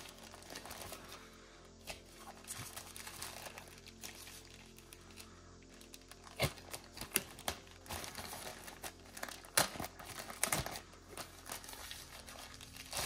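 Thin white protective wrapping crinkling and rustling as hands unfold it from around a small drone, with sharper, louder crackles through the middle of the stretch.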